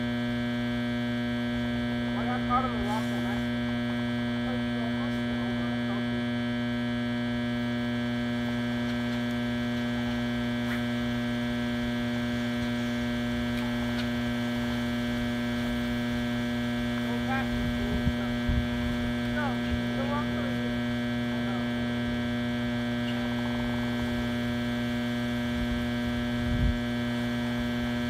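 A steady electrical hum made of many fixed tones, which the uploader puts down to a broken generator being worked on. A few soft knocks come through under it about two-thirds of the way in and near the end.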